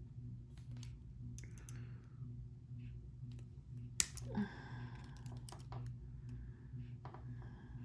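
Scattered small clicks and taps of curved jewelry pliers and thin wire being worked while wrapping a wire end around itself, with one sharp click about four seconds in. A steady low hum runs underneath.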